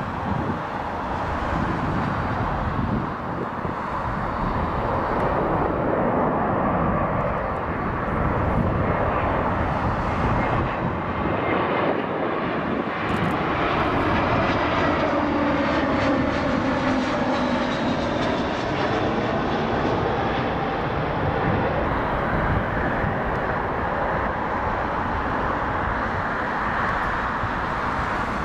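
Airbus A321-200 airliner's jet engines on landing approach: a steady jet noise, with engine tones that glide down in pitch as the plane passes, about halfway through.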